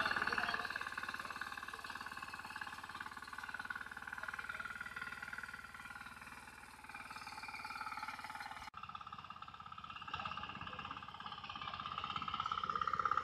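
Small engine of a walk-behind power weeder running steadily as its tines work the soil between maize rows, with a steady whine over the rapid firing pulses. The sound drops out for an instant about nine seconds in and picks up again.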